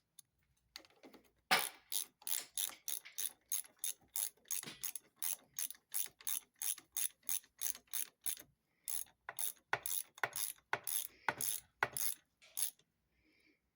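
Ratchet wrench worked in quick strokes: a sharp, even click about three times a second, stopping about a second before the end.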